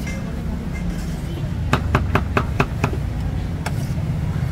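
Cleaver chopping boiled meat on a thick round wooden chopping block: a quick run of about six strikes, some five a second, near the middle, then one more a moment later, over a steady low rumble.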